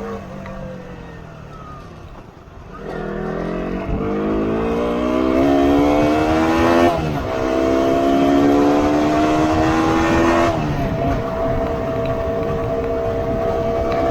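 Motorcycle engine accelerating: its pitch falls and dips for the first few seconds, then climbs steadily from about three seconds in. The pitch drops suddenly near seven seconds, as at a gear change, climbs again, drops once more near ten and a half seconds, and then holds steady at cruising speed.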